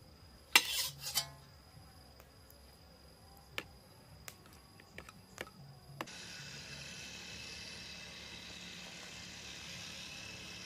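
A burst of sharp scraping clicks about half a second in, then a few lighter single clicks. From about six seconds a steady high buzzing chorus of insects sets in.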